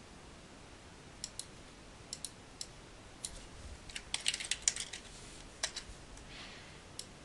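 Computer keyboard typing: a quick run of keystrokes about four seconds in, with scattered single clicks of a mouse or keys before and after.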